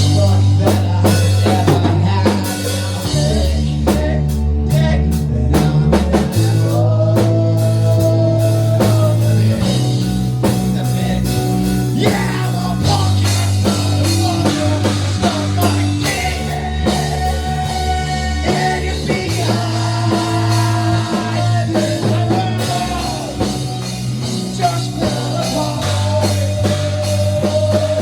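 Rock music with drums, electric guitar and bass, and a sung or held melody line over the top.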